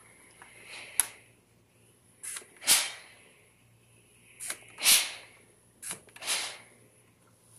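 Steam iron's ceramic soleplate gliding back and forth over a cotton shirt: a series of short swishes, each led by a light click, the louder three coming every second and a half to two seconds.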